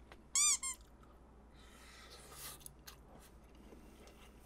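A short high-pitched squeak that rises and falls in pitch, followed at once by a briefer second squeak.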